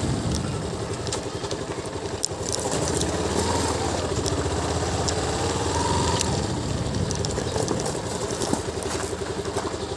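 Small motorcycle engine running at low revs as the bike rolls slowly, with scattered crackles from the tyres on gravel.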